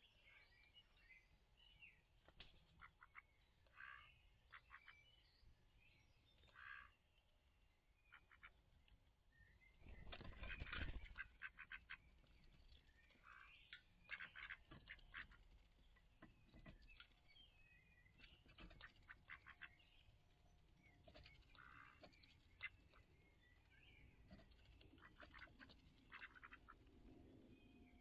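A female duck dabbling her bill in birdseed at a feeding bowl: faint, rapid clicking and smacking, with a few short soft calls. A louder rustle comes about ten seconds in.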